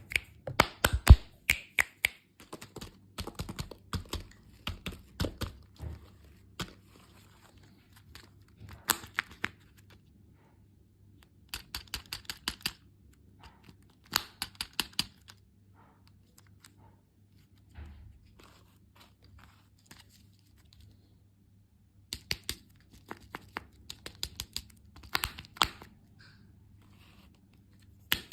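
Crunchy sweets being bitten and chewed close to the microphone: short clusters of crisp clicks and crackles with pauses between them.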